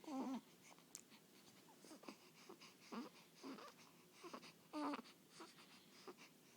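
Baby making short squeaky vocal noises, about five brief sounds spaced a second or so apart, the loudest right at the start and near the end.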